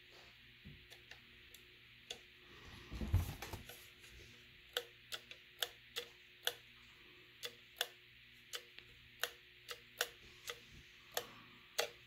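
The on/off switch lever of an opened electric kettle's base switch being flipped by hand, snapping with sharp clicks about fifteen times in an uneven run of roughly two a second from about five seconds in, as the switch of the dead kettle is tested. A handling bump about three seconds in.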